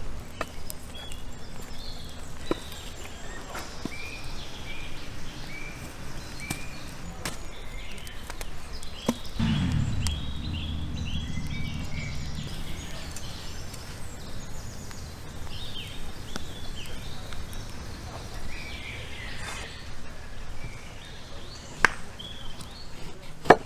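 Outdoor ambience with birds chirping in repeated short calls, a brief low call about ten seconds in, and a few sharp knocks near the end.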